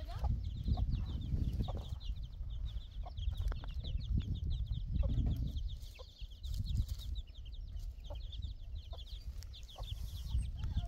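Farmyard chickens clucking, with constant high chirping and a low rumble underneath.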